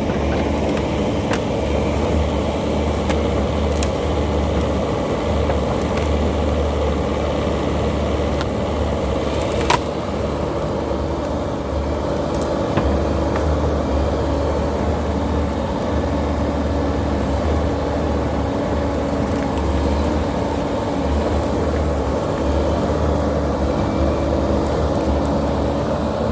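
Diesel engine of Bobcat compact equipment running steadily under load, with a couple of sharp knocks.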